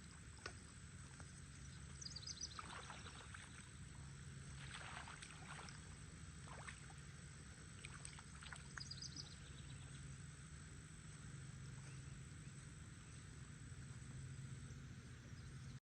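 Faint outdoor background: a low steady hum, with a few brief, faint high chirps about two seconds in and again about nine seconds in.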